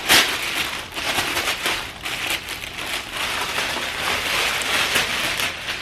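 Packaging crinkling and rustling continuously as a new handbag is unwrapped, a dense crackle of many small clicks.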